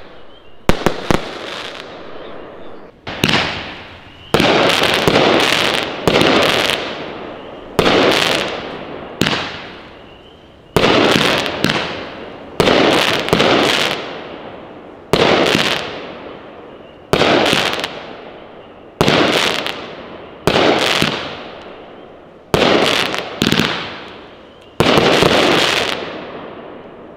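A 16-shot consumer firework cake with 1-inch tubes firing shot after shot at a steady pace, about one every one and a half to two seconds. Each shot is a sharp report followed by a fading crackle.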